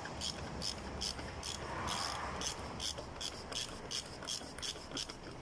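Socket ratchet with an extension and 27 mm socket clicking in a steady run, about four clicks a second, as it unscrews the cartridge oil filter housing cap on top of the engine.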